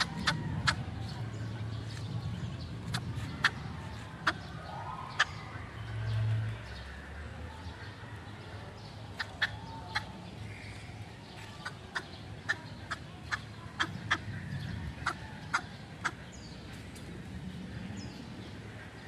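Fowl clucking, heard as a string of irregular short, sharp clicks and taps spread across several seconds.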